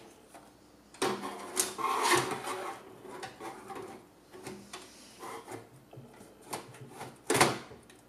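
Metal hot-swap drive bay cage sliding and scraping into a metal computer case, with knocks and clicks as it is worked into place. The loudest clunk comes near the end as it seats.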